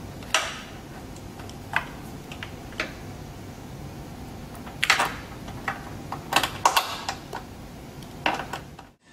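Small metallic clicks and clinks, irregular and scattered with a cluster in the middle, from wire ring terminals and a nut being handled and fitted onto a ground bolt, over a steady low hum.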